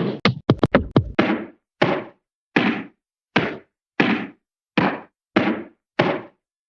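Repeated whacking impact sound effect: a quick flurry of hits in the first second, then single hits at a steady pace of about three every two seconds, each with a short fading tail.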